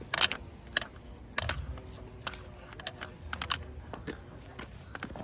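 A run of irregular sharp clicks and taps, loudest once just after the start and again about a second and a half in.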